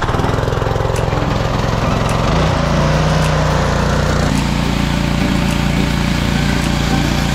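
Gas pressure washer's small single-cylinder engine running steadily. Its note changes about four seconds in, with the spray hissing as the wand washes down a tractor tyre.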